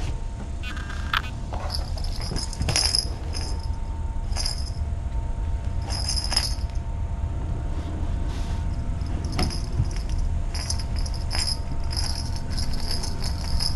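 A small jingling cat toy rattling in short, irregular bursts as a cat bats it about, over a steady low hum.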